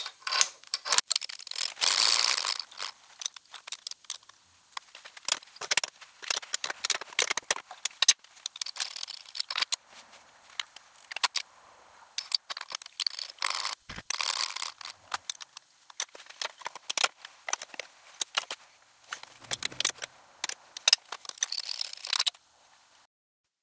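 Steel roller rocker arm and adjustable pushrod clicking and clattering against each other and the aluminum cylinder head as they are taken off, adjusted by hand and refitted. There are many irregular clicks, busiest in the first few seconds and again about halfway through.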